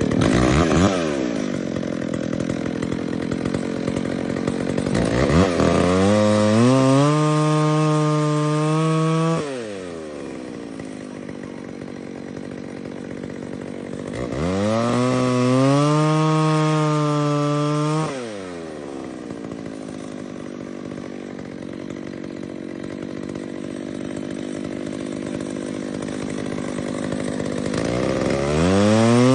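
A 60cc two-stroke chainsaw running, throttled up to high revs three times, each held about three to four seconds before dropping back to a lower running speed. Its idle is not yet set right.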